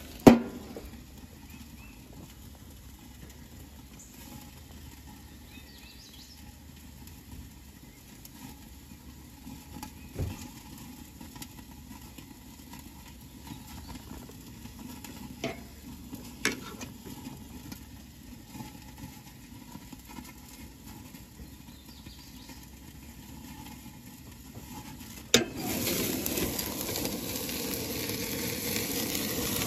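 Rib eye steaks sizzling on a propane gas grill. The metal lid bangs shut just after the start, leaving a faint muffled hiss with a few small clicks. About 25 seconds in it clanks open again and a louder sizzle and hiss comes back.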